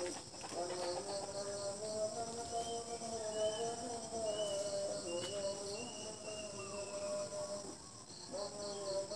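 Insects chirring steadily in garden vegetation, with a louder, slowly wavering hum running underneath and a few brief higher-pitched notes in the middle.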